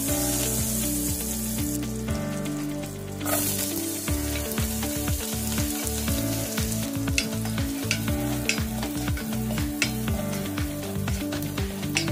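Butter sizzling as it melts in a nonstick pot, then chopped red onion frying in it. A plastic spatula stirs, with frequent clicks and scrapes against the pot in the second half.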